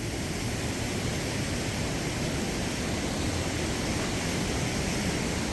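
Steady rush of falling water from a waterfall and creek, an even continuous hiss without breaks.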